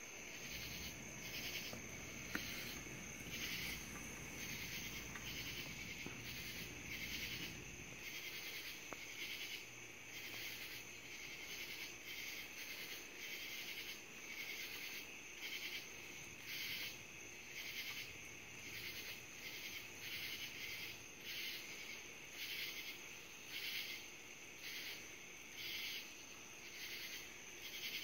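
Night insect chorus pulsing steadily, about one and a half pulses a second. A low rumble of distant thunder sits under it for the first eight seconds or so, then fades.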